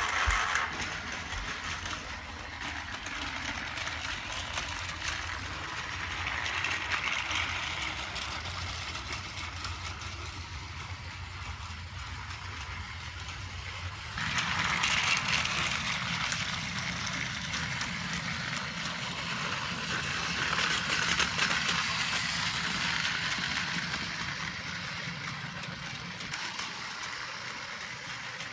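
Battery-powered Trackmaster 2 toy engine's small motor running as it pulls two trucks along plastic track, the whirring and clattering swelling and fading as it comes near and goes away again, louder from about 14 seconds in.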